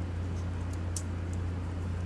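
A few faint light clicks of small plastic Logitech G604 mouse parts being handled, over a steady low hum.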